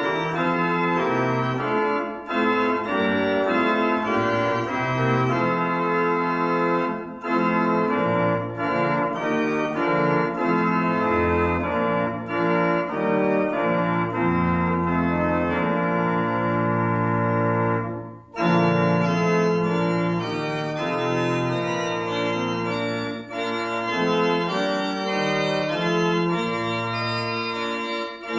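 Church organ playing a hymn in held chords, phrase by phrase, with short breaks between the phrases.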